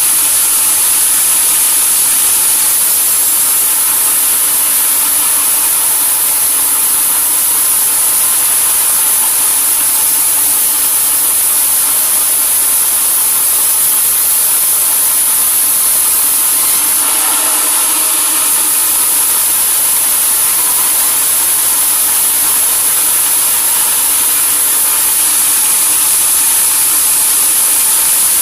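Sawmill saw running steadily: a loud, even machine noise with a strong high-pitched hiss, changing briefly about two-thirds of the way through.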